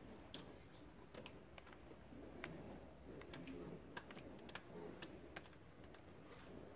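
Faint, irregular small clicks and ticks of hands handling a plastic electrical connector and wiring harness, fitting a harness plug onto a diesel engine's fuel rail pressure sensor.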